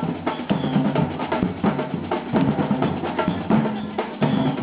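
Percussion music: bass drum, snare and other drums playing a busy, steady rhythm.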